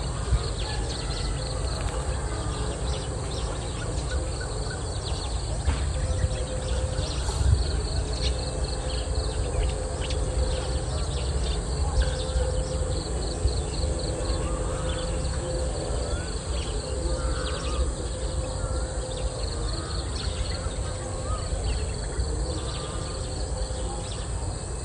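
Open countryside ambience: a steady low rumble, with scattered bird chirps and a high, rapid pulsing call.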